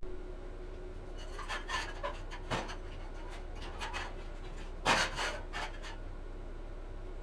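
Irregular short scraping and rubbing strokes of hand work on material, with a sharp knock about two and a half seconds in and the loudest scrape about five seconds in, over a steady low hum.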